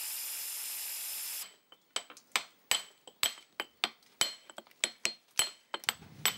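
An angle grinder's disc cutting stone, a steady hiss that stops abruptly about a second and a half in. Then a hammer striking a steel point chisel into stone, sharp clinks at about three blows a second.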